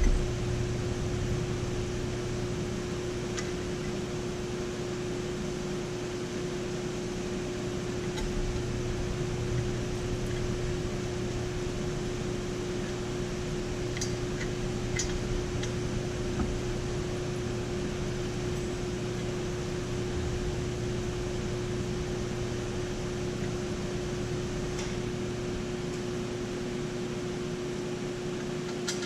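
A steady mechanical hum with a constant tone, like a running fan or motor, and a few faint clicks.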